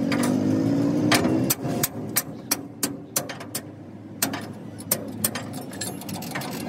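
An engine rising in pitch for about the first second and a half. Then a run of sharp metallic clicks, about three a second, followed by a few spaced clicks: a wrench working on truck axle and suspension hardware.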